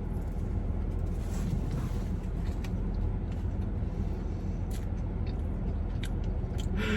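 Air conditioner running with a steady low hum, with a few faint clicks over it.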